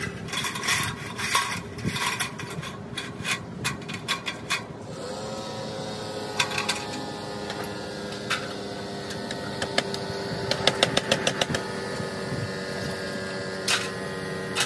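A motor-driven machine hums steadily from about five seconds in, most likely the air compressor on the job, over sharp clicks and taps from fastening sheathing boards to the wall, with a quick run of taps near the end.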